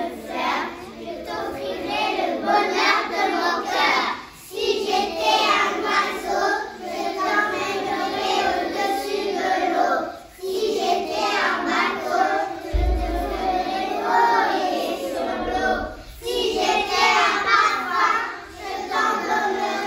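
A class of five- to six-year-old children reciting a poem in unison, a chorus of young voices chanting in sing-song phrases with three short pauses between them.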